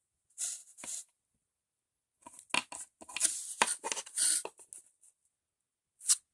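A small toy's wrapper being torn open and crinkled by hand, in several short crackling bursts, the longest from about two to five seconds in.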